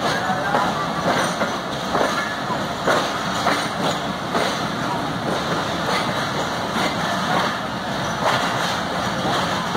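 Passenger coach wheels clacking over rail joints as an express train pulls slowly out of a station, an irregular clack every half second to a second over a steady rumble of the running gear.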